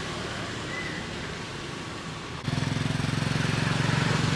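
Low steady hum with outdoor background noise, then about two and a half seconds in a small engine's low, rapid putter cuts in abruptly and runs louder.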